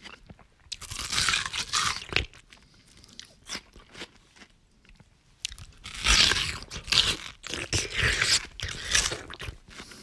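A person biting into and chewing watermelon. A run of crunching bites and chewing comes about a second in, then a few quiet chewing clicks, then a longer stretch of crunching and chewing through the second half.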